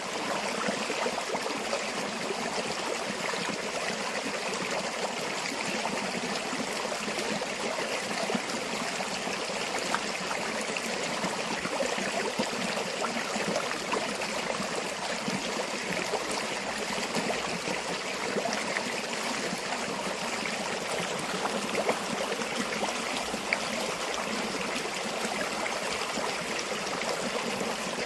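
Steady rushing and babbling of a flowing river or stream, with small splashes and trickles over an even wash of water noise.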